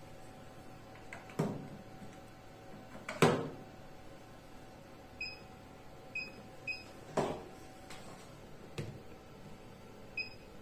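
HIFU machine's touchscreen giving short, high electronic beeps as its buttons are pressed, four times in the second half. Five dull knocks come in between, the loudest about three seconds in, over a faint steady hum.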